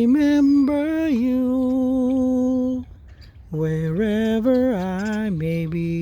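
A solo voice humming the closing melody of a slow ballad without words: two long phrases of held, wavering notes with a short pause between, the second phrase settling lower in pitch.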